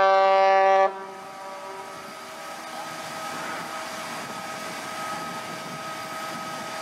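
A ship's horn sounding a loud, steady blast that cuts off about a second in, followed by a steady lower hum with faint constant tones.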